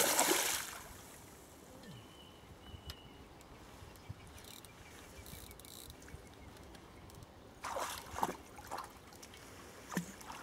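A hooked barbel splashing at the water's surface while being played on the line: a loud splash right at the start, then quieter water, with a few more short splashes about eight seconds in.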